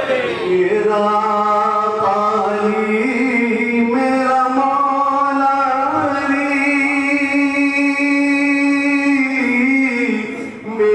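A man's voice singing a chant-like recitation into a microphone in long held notes. The pitch steps up about three seconds in and holds, with a short break near the end.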